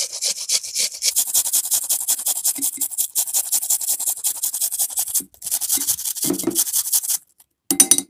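Onion being grated on a metal hand grater into a bowl: fast, even rasping strokes, several a second, with a brief break partway. The strokes stop about seven seconds in, followed by one short scrape near the end.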